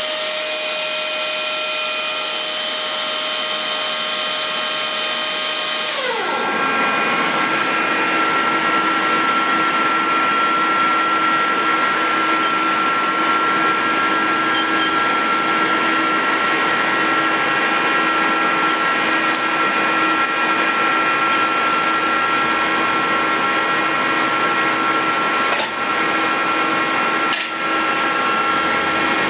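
Mori Seiki NL1500 SMC CNC lathe running with a steady machine whine and hiss. About six seconds in the whine drops in pitch as the speed changes, then holds steady. Two brief clicks come near the end.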